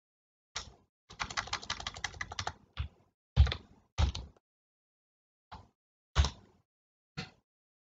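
Computer keyboard keystrokes: one tap, then a rapid run of key taps for about a second and a half, followed by single, more widely spaced keystrokes, the loudest about three and a half and six seconds in.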